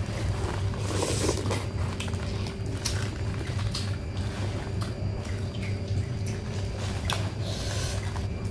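Wet, sticky eating sounds of crab in thick sauce being picked apart by hand and eaten, with squelches, mouth smacks and small clicks of shell, over a steady low hum.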